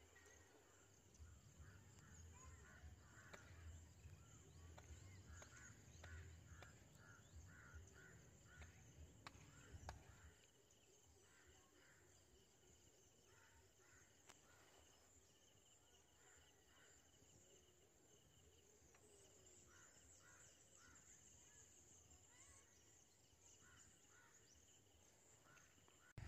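Faint outdoor ambience by open water: birds calling in short, repeated chirps, with a low rumble that stops about ten seconds in.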